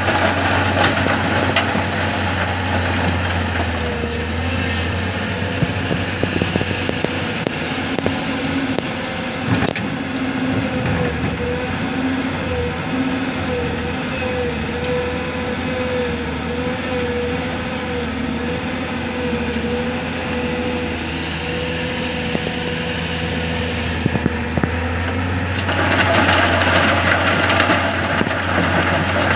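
Diesel engine of heavy earthmoving machinery running steadily, with a wavering whine through the middle and one sharp crack about ten seconds in. It grows louder and rougher near the end.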